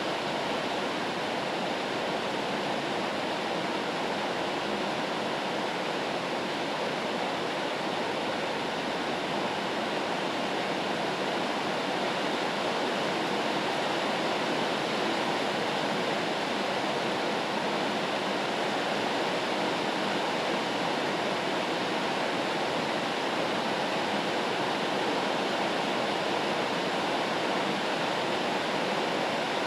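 Steady white-noise rain sound: an even rushing hiss with no separate drops and no change in level.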